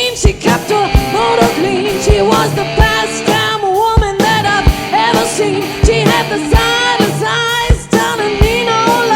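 A band playing a pop-rock song, with a lead vocalist singing a melody over a steady kick-drum beat.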